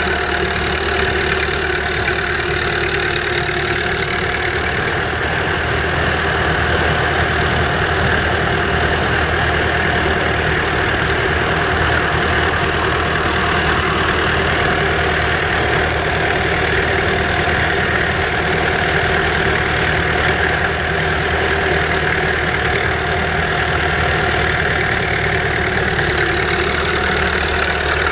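1961 Massey Ferguson 65's 3.3-litre four-cylinder diesel engine running steadily as the tractor pulls a Ransomes three-furrow reversible plough.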